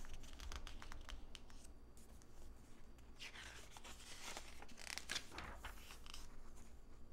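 Magazine pages being handled and turned by hand: paper rustling and sliding, with two louder swishes of a page about three and five seconds in.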